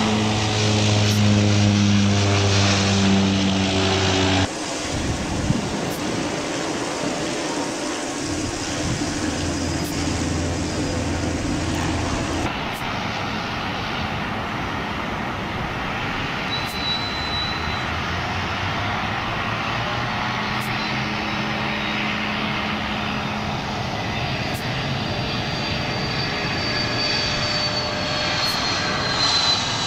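For the first few seconds, a twin-turboprop airliner's engines and propellers run with a steady, pitched drone. After a cut, Fokker 100 jet airliners' engines run as they land and roll on the runway, with a high whine that falls slowly near the end.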